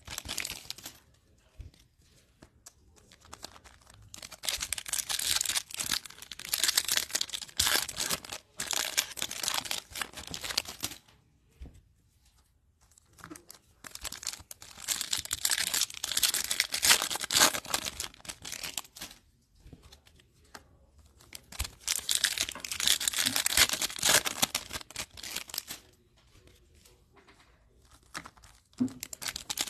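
Topps Chrome trading card pack wrappers being torn open and crinkled by hand, in four stretches of a few seconds each with quieter pauses between them.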